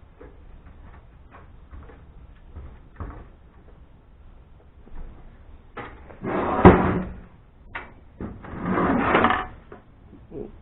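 Parts of a desktop computer being handled during dismantling: light clicks and taps, then a sharp knock about two-thirds in, followed by a longer scraping rattle near the end.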